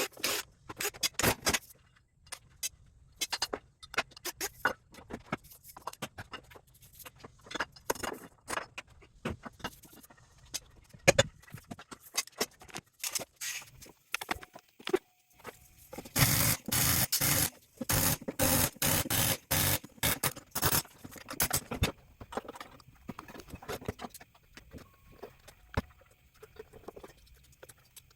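Tools and metal parts of an electric motor clanking, knocking and scraping as it is taken apart, with a stretch of louder, rapid rattling about halfway through.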